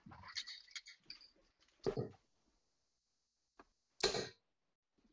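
Darts striking a dartboard: two short, sharp knocks about two seconds apart, with faint clicks before and between them.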